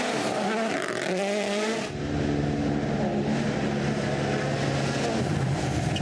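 WRC Rally1 car's turbocharged four-cylinder engine revving hard, its note rising in pitch over the first two seconds. About two seconds in the sound changes abruptly to another shot, where the engine holds a steady high note and then dips in pitch near the end as the car goes by.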